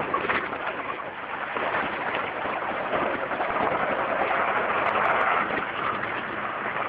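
Jeep Wrangler on the move off-road: a steady, rough rushing noise of the vehicle driving, growing a little louder about two seconds in.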